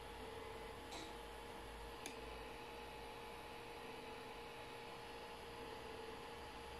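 Faint steady hum from a 3D printer converted into a pick-and-place machine, with short, quiet stepper-motor whines coming and going as the nozzle head moves during head calibration. Two small clicks come about one and two seconds in.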